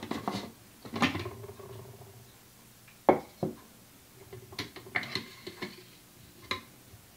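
Plastic film developing tank being opened and its film reels lifted out: a few scattered knocks and clicks of plastic on plastic, one early knock ringing briefly.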